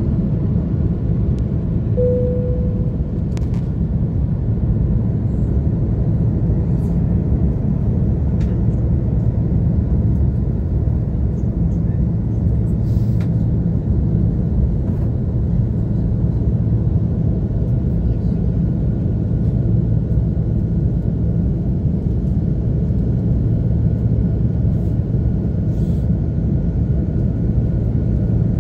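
Steady, deep-rumbling cabin noise of a Boeing 777-300ER climbing out after takeoff, heard from a window seat by the wing: its GE90-115B turbofans running at climb power. A brief single tone sounds about two seconds in.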